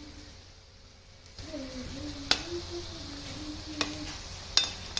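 Gujiyas deep-frying in hot oil in an iron kadhai: a steady sizzle sets in about a second and a half in, with three sharp clicks over it.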